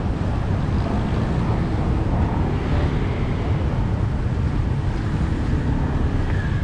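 Steady low rumble of passing street traffic, mixed with wind buffeting the microphone.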